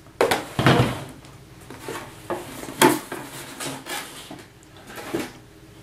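A small steel pistol safe being slid out of its cardboard box and set down on a tabletop. A cluster of knocks and scraping comes just after the start and is the loudest, followed by several lighter knocks and rubs as the safe and packaging are handled.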